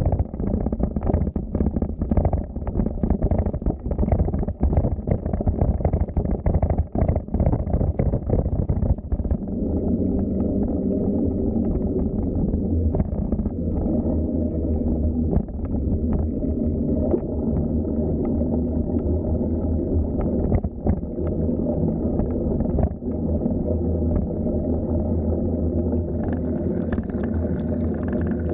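Low wind rumble on the microphone of a moving bicycle, with many uneven knocks and rattles for the first nine seconds or so, then a steadier hum.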